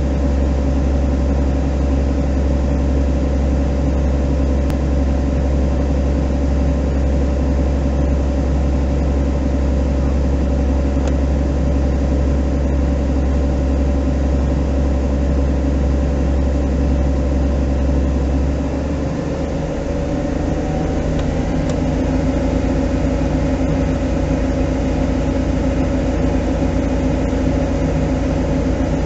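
Fire engine's diesel engine running steadily at idle, heard from inside the cab, with a strong deep hum. About two-thirds of the way through the deep hum drops and the engine note rises a little and holds higher, as the engine is brought up to run the water pump for the hose line.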